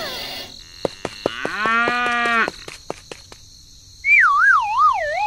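A drawn-out pitched call lasting about a second, with a few sharp clicks around it. Near the end comes a wobbling whistle that slides down in pitch.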